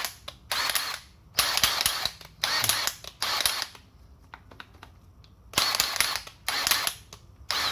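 Makita DTW190 18V cordless impact wrench run in about eight short trigger bursts, each a harsh mechanical rattle of under a second with short pauses between.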